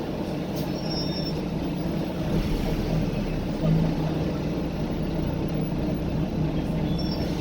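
Volvo B9TL double-decker bus in motion, heard from on board: a steady low engine and road rumble with a hum that swells briefly a little past halfway.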